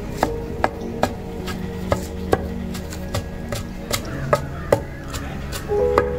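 Regular chopping strokes, about two and a half a second, with steady instrumental music underneath.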